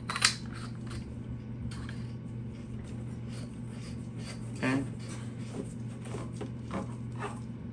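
Scattered light clicks and knocks of a Valken M17 paintball marker's barrel and handguard being handled and slid together, the sharpest right at the start, over a steady low hum.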